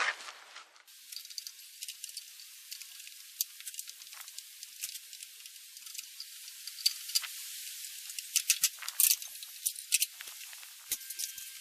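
Irregular metallic clicks and small rattles of a wrench working the arbor nut as a saw blade is tightened.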